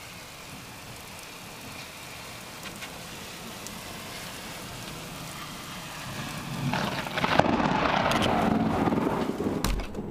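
Steady heavy rain, then, about two-thirds of the way in, thunder from a very close cloud-to-ground lightning strike: a sudden loud crack and crash that rumbles on for about three seconds.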